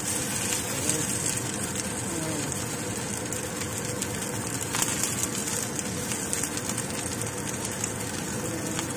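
Dumplings sizzling in a little oil in a nonstick pan, a steady hiss with a few sharper crackles, as their bottoms brown once the steaming water has cooked off.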